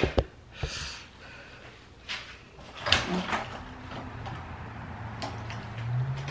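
A few knocks and handling sounds, then a sharp clack from the front door's handle and latch as the door is opened, followed by a low steady hum coming in from outside.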